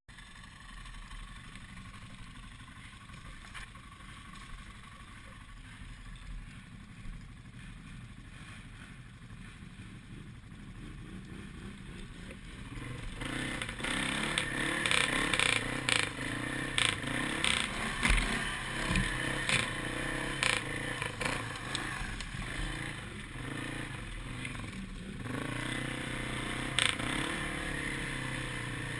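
Arctic Cat Mud Pro 700 ATV engine running at low throttle, then from about halfway revving harder as the machine pushes through thick brush, with branches cracking and scraping against it in quick sharp clatters.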